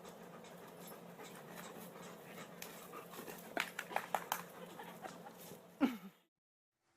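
A dog panting quietly, with a few light clicks in the middle and a brief falling whine near the end.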